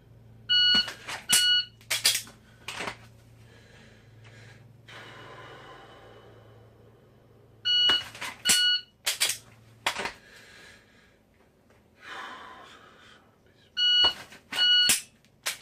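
Shot timer beeping in pairs set to a 0.8-second par time: a start beep and a par beep about 0.8 s later, three times over. Around each pair come sharp clicks and knocks from drawing a Glock pistol from the holster and dry-firing it.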